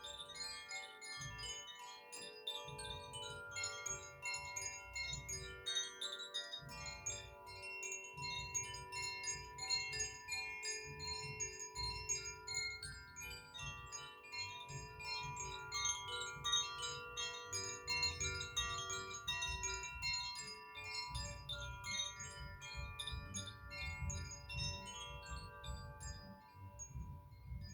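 Koshi chimes played by hand: a continuous tinkling of many overlapping ringing tones, each fresh strike adding new notes as others die away.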